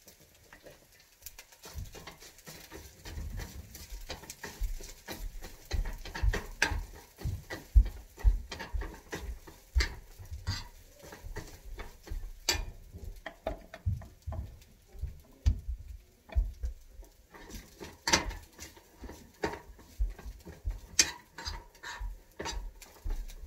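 Food preparation at a kitchen counter: irregular knocks, taps and clatter of utensils and dishes, with dull thumps on the counter about once or twice a second.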